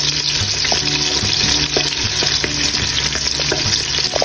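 Garlic and red onion sizzling steadily in hot oil in a stainless steel pot, sautéing toward light brown, with a wooden spoon stirring and now and then clicking against the pot.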